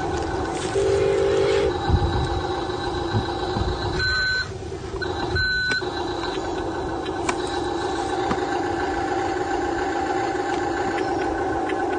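Small electric motors and gearboxes of a radio-controlled excavator and dump truck running with a steady whine of several held tones, with two short beeps about a second and a half apart a few seconds in.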